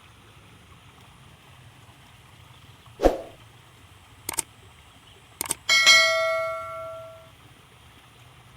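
A dull knock, a couple of sharp clicks, then a metal object struck once, ringing like a small bell and fading over about a second and a half.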